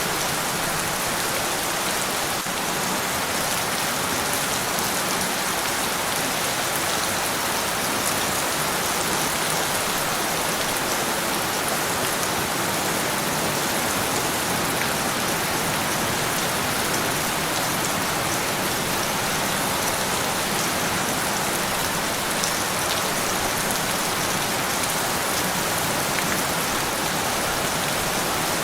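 Steady rain falling and pattering on surfaces, an even hiss of many drops with faint scattered ticks of single drops, unchanging in strength.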